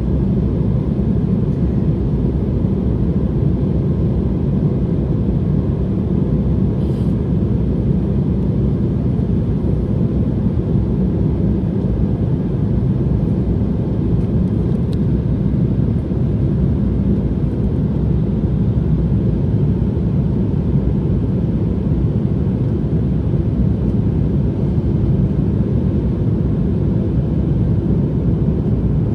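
Steady low drone inside the cabin of an Embraer 175 airliner in flight: its two CF34 turbofan engines and the rush of air along the fuselage, heard from a window seat.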